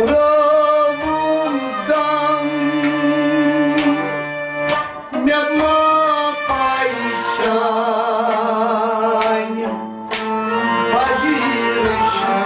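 Kashmiri Sufi music: a harmonium holds sustained reedy tones under a wavering, vibrato-laden melody, with sharp percussion strokes at irregular intervals.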